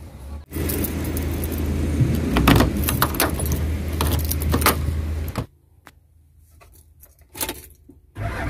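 Car keys jangling as a key is worked in the van's door lock, with handling rattles over a steady low hum. This is followed by a quieter stretch with a few clicks and one brief knock.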